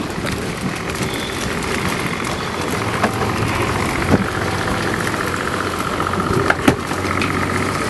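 Press boat's engine running steadily, with a low hum that strengthens about three seconds in, and a few sharp knocks scattered through.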